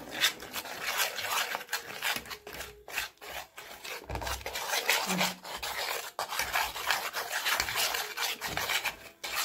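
Metal spoon beating thick gram-flour (besan) batter in a steel bowl: continuous quick scraping of the spoon against the bowl, with the wet slap of the batter.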